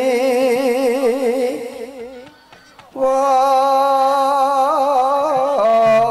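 A solo voice singing a slow Javanese verse in long held notes with a wavering pitch, with no audible accompaniment. The note dies away about two seconds in, and a new long note starts about a second later.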